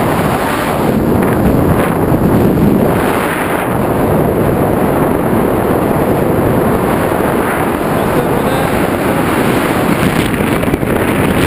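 Loud, steady rush of wind over the microphone of a hand-held action camera as a tandem skydiving pair descends through the air.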